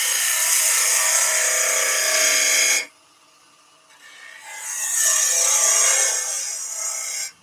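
A turning tool cutting into wood spinning on a lathe: a steady scraping hiss that stops for about a second and a half near the middle as the tool lifts off, then cuts again, deepening the cut at the neck.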